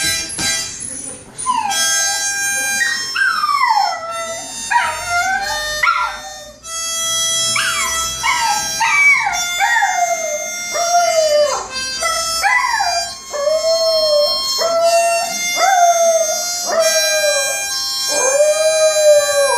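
A dog howling along to a harmonica that is blown in held chords with no tune or rhythm. The howls come as a string of short rising-and-falling arcs, about one a second, over the harmonica's steady notes.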